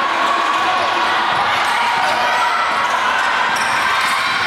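Live basketball game sound: a ball bouncing on an indoor court over a steady din of crowd voices.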